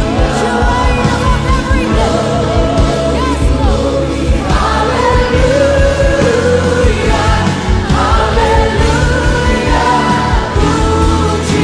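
Christian worship song: voices singing over band accompaniment with a steady beat.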